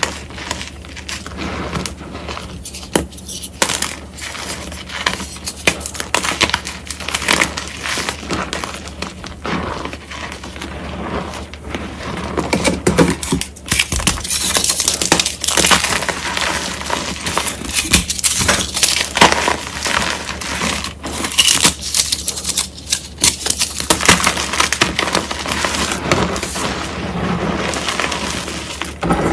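Reformed gym chalk crushed by hand: chunks and chalk hearts crunch and crumble between the fingers in a dense, irregular crackle, with the soft hiss of loose chalk powder being stirred. The crunching thickens about halfway through as a large chalk heart is squeezed apart.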